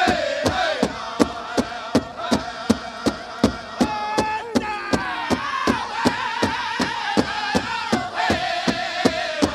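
Powwow drum group: a big drum struck in a fast, even beat, about four strokes a second, with men singing a high chant over it that glides down at the start of a phrase.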